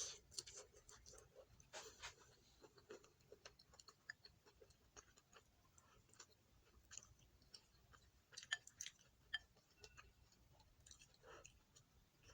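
A person chewing a meal of fried egg and stir-fried greens, faint, with many small irregular clicks and moist mouth sounds.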